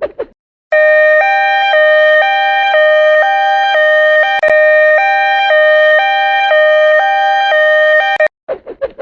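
Japanese railroad crossing warning bell: two electronic tones, a higher and a lower, alternating with each held about half a second. It starts just under a second in and cuts off abruptly near the end, with a brief click partway through.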